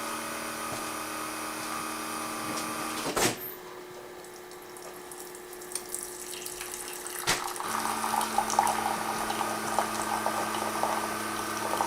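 Keurig pod coffee maker in its brew cycle: a steady hum, a click about three seconds in and a quieter stretch, then a second click as its pump starts, humming with a gurgle of water while hot water is pushed through the pod.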